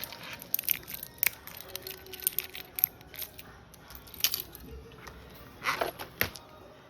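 Small plastic toys and packaging being handled: a run of irregular rustles, crinkles and clicks, with louder crackles about four seconds in and again near the end.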